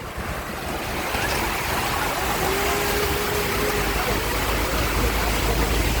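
Steady road and wind noise of a moving car, with a low rumble that grows stronger from about two-thirds of the way in.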